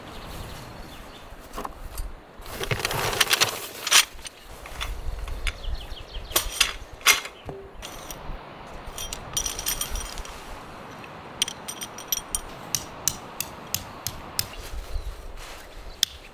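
Canvas rustling and metal tent pegs clinking against each other as they are handled from a stuff sack, then a hammer driving a metal tent peg into the ground in a steady series of sharp strikes, about two a second, through the second half.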